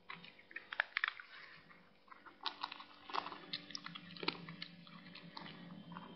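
A cat playing with a loose piece of twine on a dirt path, making irregular crackling clicks close to the microphone over a faint steady hum.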